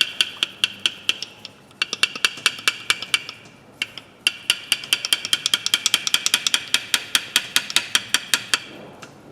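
Pair of rusty pliers worked rapidly open and shut to free up the stiff joint after WD-40, the metal jaws clicking together about six times a second with a metallic ring, pausing briefly twice and stopping near the end.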